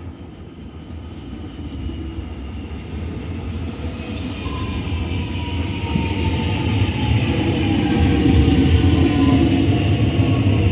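Metro Trains Melbourne X'Trapolis 100 electric suburban train pulling into the platform, its running noise growing steadily louder as it approaches, with a whine that falls slowly in pitch as the train slows to stop.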